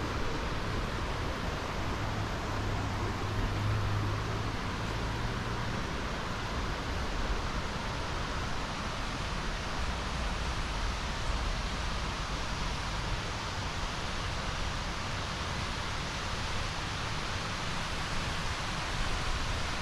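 Waterfall water falling and rushing with a steady, even hiss.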